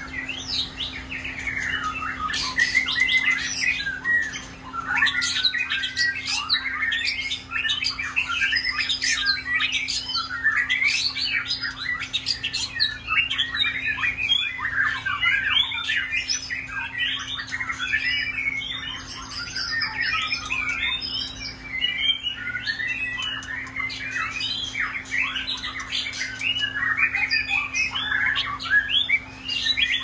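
Several caged white-rumped shamas singing at once: a dense, unbroken stream of varied whistled and chattering phrases that overlap one another.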